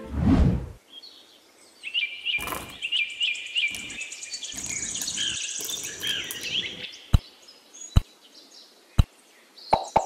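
Birds chirping and trilling. It opens with a short low whoosh, and three sharp clicks come about a second apart near the end. A fast run of clicks begins just before it ends.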